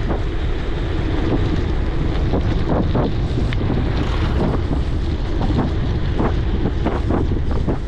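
Steady low wind rumble buffeting the microphone of a camera riding along on a moving bicycle, with a few faint light knocks here and there.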